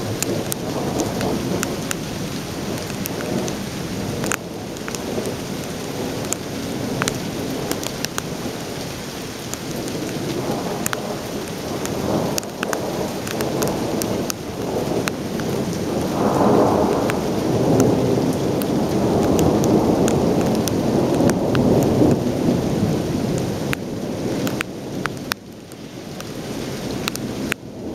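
Thunder rumbling long and low through heavy rain, swelling louder past the middle and easing off near the end. Raindrops striking the camera body make sharp crackling clicks throughout.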